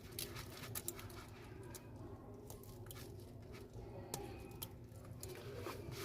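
Faint scattered clicks and taps of small phone parts and tools being handled, over a steady low hum.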